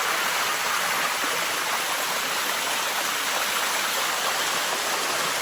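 Water of Bua Tong Sticky Waterfall cascading over its limestone steps: a steady, unbroken rush.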